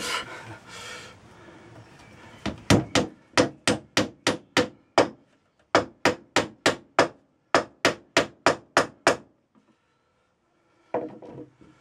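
Wooden mallet tapping wedges into the glued arm joints of a green-ash Windsor chair: quick wood-on-wood knocks, about four a second, in two runs of a dozen or so with a short break between, then a single knock near the end.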